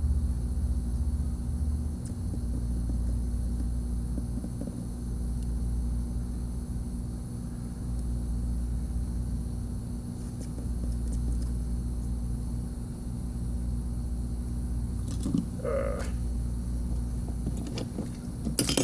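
Steady whoosh and low rumble of a hot air rework station's blower, with a few small clicks near the end.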